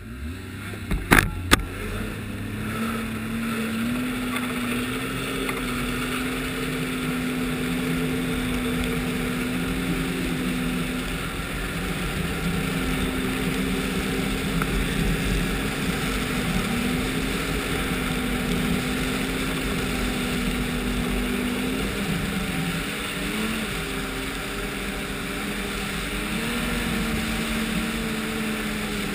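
Ski-Doo snowmobile's 1200 4-TEC three-cylinder four-stroke engine running at a steady cruise, its pitch climbing as it speeds up about three seconds in and dipping briefly a few times as the throttle eases. Two sharp knocks about a second in are the loudest sounds.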